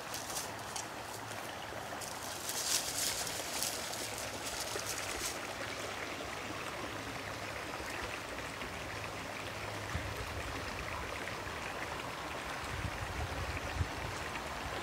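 Shallow woodland brook running steadily. During the first five seconds, dry leaves crackle and rustle underfoot.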